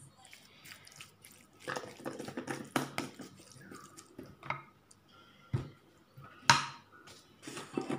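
Plastic spatula stirring and pressing a moist minced pork and vegetable filling in a bowl: irregular squelching and scraping strokes, with a few sharper knocks, the loudest about six and a half seconds in.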